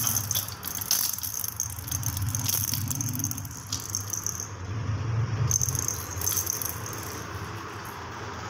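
A baby's plastic rattle ball being shaken, rattling in quick irregular bursts, busiest in the first half with a short break about four and a half seconds in.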